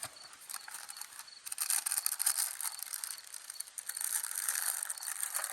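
Trout sizzling and crackling as it cooks over a campfire, a dense high-pitched hiss of fine pops that grows louder about a second and a half in.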